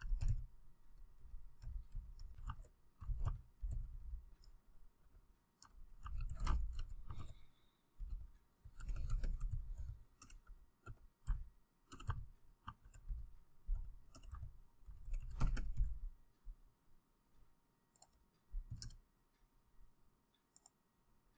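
Typing on a computer keyboard: sharp key clicks, each with a soft low thump, coming in uneven runs and growing sparse near the end.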